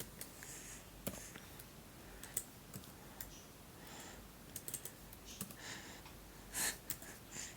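Faint, irregular clicking and tapping, with a louder click about six and a half seconds in.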